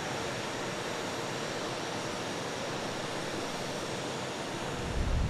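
Steady rushing noise of an aircraft carrier's flight deck, an even roar of wind and distant machinery with no distinct events. A deeper rumble swells near the end.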